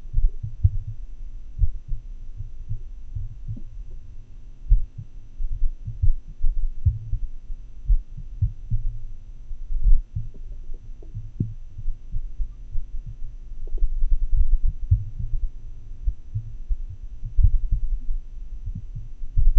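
Heart sounds picked up through a funnel and desktop microphone: low, muffled beats coming at uneven, unpredictable gaps, the irregularly irregular rhythm of atrial fibrillation. A steady low hum runs underneath.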